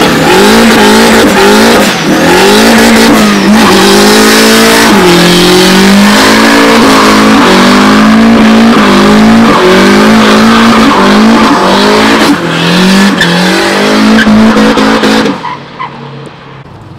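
Volvo 240 doing a burnout: the engine is held at high revs, its pitch wavering up and down again and again, over the hiss and squeal of the spinning rear tyres. The sound cuts off suddenly near the end.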